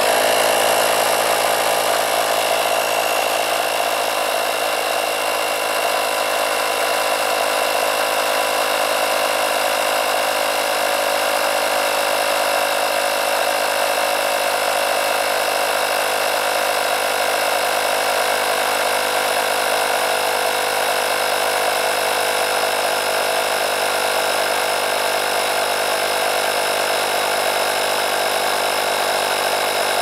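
Small 12-volt tyre-inflator compressor from a Dunlop Tech tyre repair kit switching on abruptly and running at a steady pitch, building pressure with its gauge near 2 bar.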